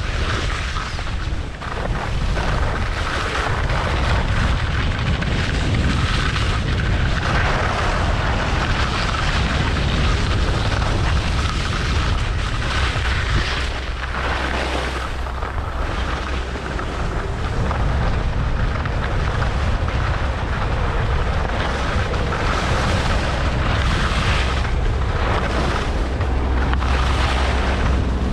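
Wind buffeting a GoPro's microphone during a downhill ski run, a heavy low rumble, with the steady hiss of skis sliding over packed snow.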